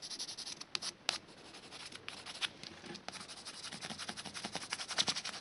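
A pencil scratching and rubbing on paper pressed over an exhaust silencer cartridge as its outline is traced. The strokes are quick and repeated, with a few sharper ticks.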